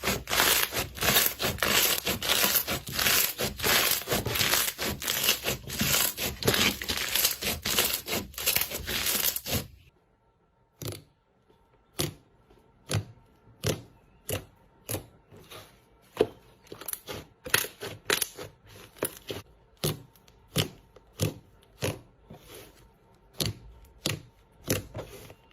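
Slime being worked by hand: a dense, loud crackling squish for about the first ten seconds, then it stops and gives way to separate sharp pops and clicks, one or two a second, as the slime is pressed and poked.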